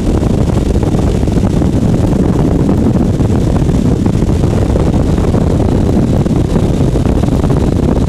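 Light aircraft in flight in strong wind: a loud, steady rumble of engine and wind buffeting on the microphone.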